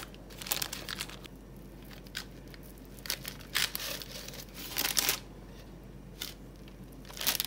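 A table knife cutting down through a soft milk sweet and scraping on the baking paper underneath, with the paper crinkling. It comes as a series of short scraping rustles, the longest a little before the middle and about two-thirds of the way through.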